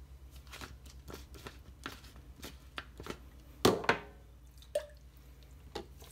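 Hard plastic clicks and knocks from handling a Magic Bullet blender cup: the blade base is unscrewed and set down on the counter. Two sharp knocks a little under four seconds in are the loudest, over a faint steady low hum.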